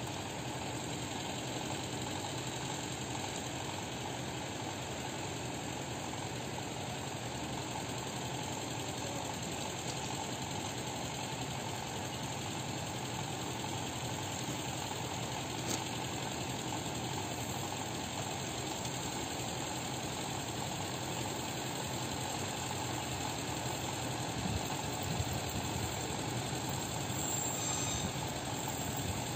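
Diesel-electric locomotive's engine running steadily at low power as it pulls a passenger train along at a crawl, a low, even drone with a single faint click partway through.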